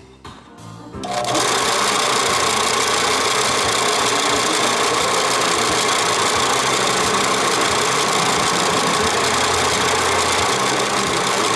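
Harbor Freight belt/disc sander running with a steady motor hum and a loud, dense grinding hiss as its belt sands steel, taking a tack weld and rust off angle iron. The sound builds over about the first second, then holds steady.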